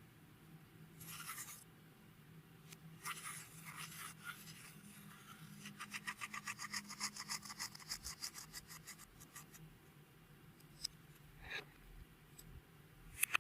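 Clear slime mixed with beads being worked by hand, a soft rubbing and squishing, with a run of quick, even clicks, about seven a second, through the middle and a few sharp ticks near the end.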